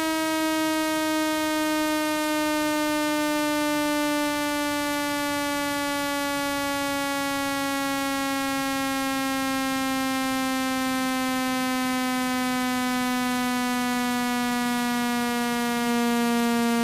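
Synthetic buzzing test tone, rich in overtones, played to vibrate water out of a phone speaker; its pitch glides slowly downward.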